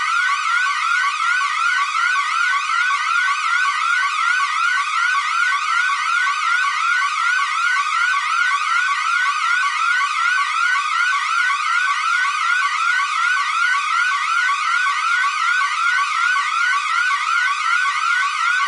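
Electronic alarm siren: a loud tone sweeping quickly upward and snapping back, repeating several times a second without pause.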